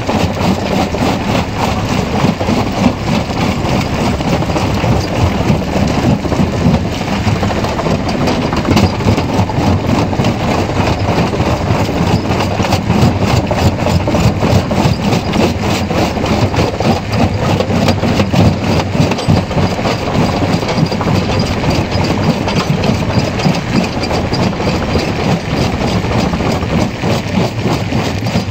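Stone jaw crusher running under load: a steady mechanical drone with constant cracking and grinding of rock being crushed between the jaw plates.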